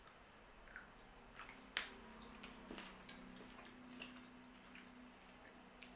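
Popping candy in white chocolate crackling in the mouth as it is chewed: faint, scattered little clicks and pops.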